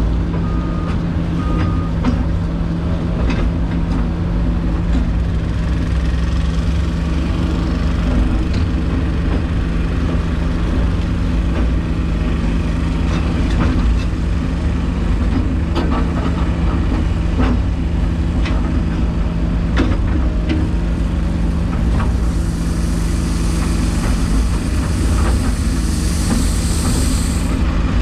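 Excavator's diesel engine running steadily under digging load, heard from inside the cab, with scattered knocks and scrapes as the bucket cuts into soft dirt. A backup alarm beeps during the first two seconds, and a high hiss comes in for several seconds near the end.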